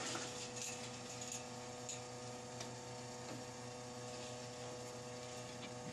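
Air-over-hydraulic hoof-trimming chute's power unit humming steadily, with a few faint clicks and knocks.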